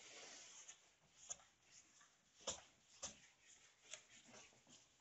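Whiteboard eraser wiping across the board, faint: one longer rub at first, then a string of short swipes.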